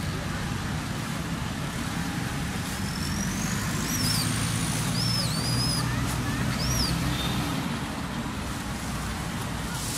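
Steady low rumble of road traffic, with a few high whistled chirps and a rising whistle in the middle.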